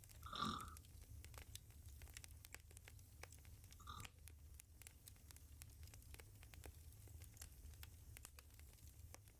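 Near-silent pause between a sleeping woman's snores: a low steady hum with faint scattered clicks, and a brief soft breath-like sound about half a second in, repeated more faintly about four seconds in.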